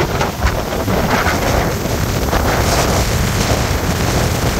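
Strong hurricane wind buffeting the microphone: a loud, steady rush with a heavy, gusting rumble.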